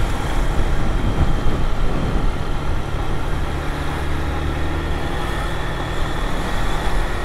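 Honda Fan 160 motorcycle's single-cylinder engine running at a steady cruise while riding, with road and wind noise picked up by a helmet-mounted motovlog microphone.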